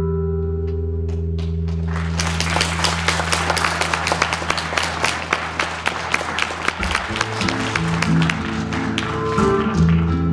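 An acoustic guitar's final chord rings on and slowly fades while the audience breaks into applause about two seconds in. About seven seconds in, acoustic guitars start picking the next song's intro as the clapping dies away.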